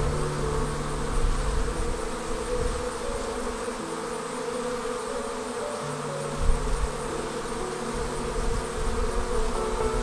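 Many honey bees buzzing in a dense, steady hum at the hive entrance as workers crawl, land and take off.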